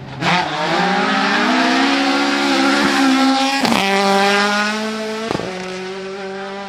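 Classic rally car's engine at full throttle, its pitch climbing steadily as the car accelerates hard. Two abrupt breaks, one past the middle and one about five seconds in, are followed by a steadier, lower note that fades slightly.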